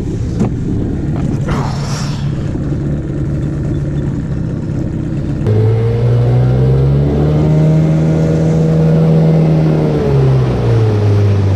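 Small outboard motor on a dinghy running under way, with water and wind noise. About halfway through it gets louder and its tone clearer, the pitch rising a little and then dropping near the end as the throttle is eased off.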